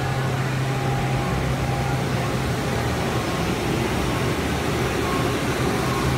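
Index G200 CNC lathe running in the shop: a steady mechanical running noise with a constant low hum.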